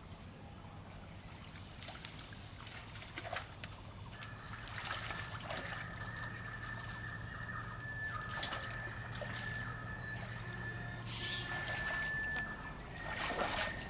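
Muddy pond water sloshing and splashing as two people wade through it and drag a fishing net, with scattered louder splashes. A steady high-pitched tone comes in about four seconds in and runs until near the end.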